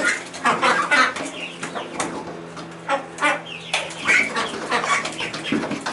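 Young Khaki Campbell ducks crowded together, giving short calls while their wings flap and their feet scuffle on the litter in scattered bursts.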